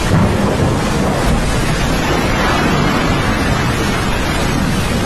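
Loud, steady rushing of fast water, with wind buffeting the microphone.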